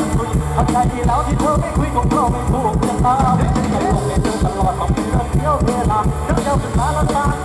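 Live mor lam band music over a loud PA, with a steady, driving drum beat and a melody that slides up and down above it.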